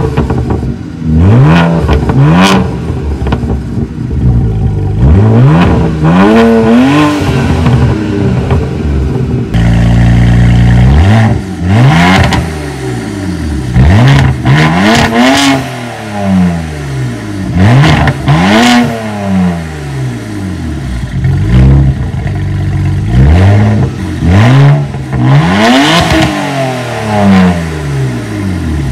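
BMW E92 335i's turbocharged inline-six, running with catless downpipes and a muffler delete, loud, its revs climbing and dropping again about nine times.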